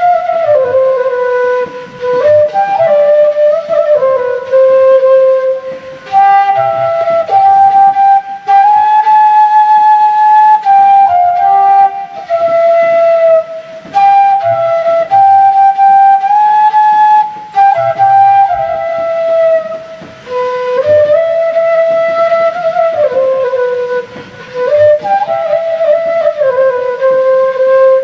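Bamboo transverse flute played solo: a slow melody of held notes that slide from one to the next, with a few brief pauses.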